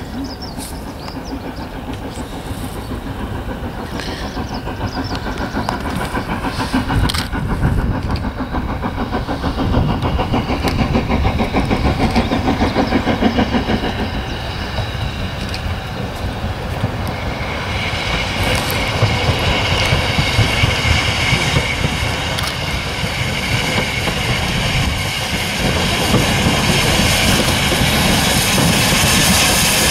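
SR N15 'King Arthur' 4-6-0 steam locomotive No.777 'Sir Lamiel' working hard, its rapid exhaust beats growing louder as it approaches. About two-thirds of the way through, a steady hiss of steam joins the beats.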